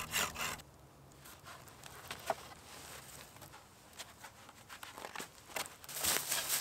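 A hand saw rasping through a green branch in a few quick strokes that stop about half a second in, then quiet handling of sticks with a few light clicks. Near the end comes louder rustling and crunching in dry grass and leaves.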